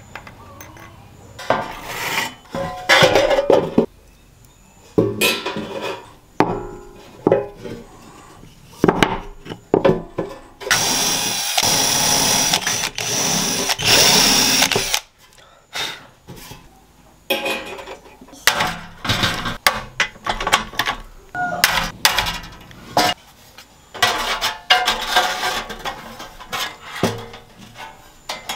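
Workshop handwork: irregular knocks, clicks and clattering of tools and parts being handled, with a power tool running for about four seconds in the middle.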